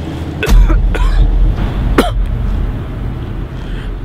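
A man coughing hard three times, about half a second, one second and two seconds in, the last with a short strained voice in it, over a low rumble that sets in with the first cough.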